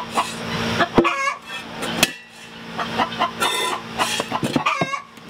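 Chickens clucking in short repeated calls, with a couple of sharp knocks about one and two seconds in.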